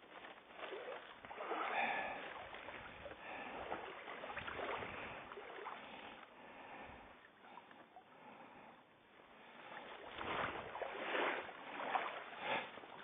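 Water lapping and sloshing, rising and falling in swells, loudest about two seconds in and again near the end.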